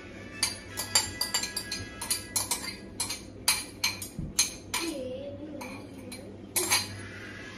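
A utensil clinking and scraping against a bowl in quick strokes, about four or five a second, as food in it is stirred or mixed; the strokes stop about five seconds in, with two more clinks near the end.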